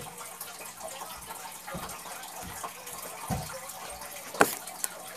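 A person moving about right next to the phone: a few soft thumps and a sharp knock about four and a half seconds in, followed by a smaller click, over a steady rushing hiss.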